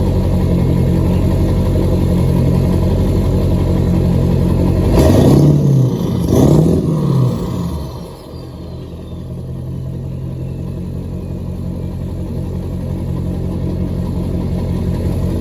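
Straight-piped Ford 7.3 Power Stroke V8 turbo-diesel idling cold, blipped twice about five and six and a half seconds in, each rev rising and falling quickly. After the revs a turbo whistle winds down in pitch while the engine settles back to a steady idle.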